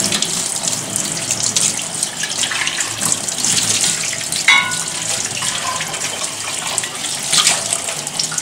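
Tap water running into a stainless steel sink while an espresso-machine boiler is rubbed clean under the stream, with one short ringing knock about halfway through.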